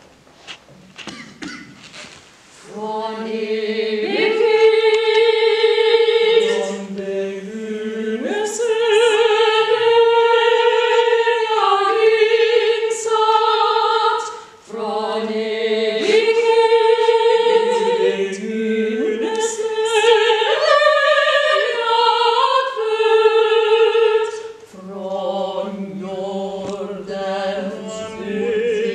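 Unaccompanied female vocal ensemble singing contemporary choral music: several voices holding long notes with vibrato in close harmony, shifting pitch together. The voices come in a couple of seconds in and break off briefly twice between phrases.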